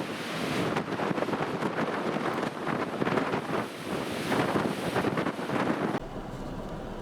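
Strong gusting wind buffeting the microphone over pounding surf. About six seconds in, this cuts off abruptly to a steadier, quieter rumble.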